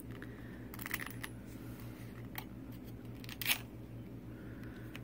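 Scattered light clicks and ticks of resin diamond-painting drills being pressed and nudged into place against a steel ruler, the loudest about three and a half seconds in, over a steady low hum.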